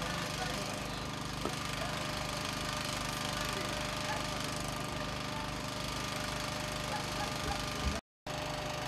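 An engine idling steadily with a low, even throb, broken by a short silent gap near the end.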